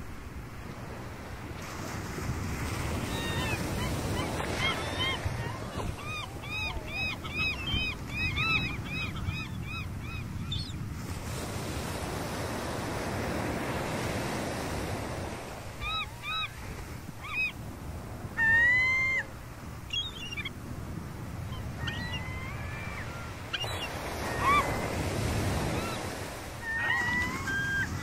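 Surf breaking on a beach, swelling and fading every several seconds, with gulls calling over it: a quick run of repeated laughing calls from about 6 to 10 seconds in, then scattered single calls through the second half, the loudest about two-thirds of the way through.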